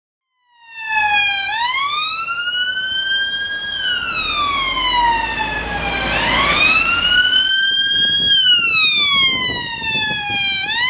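Emergency vehicle siren sounding a loud, slow wail. It starts about a second in and its pitch sweeps up and down in long, even cycles of roughly five seconds each.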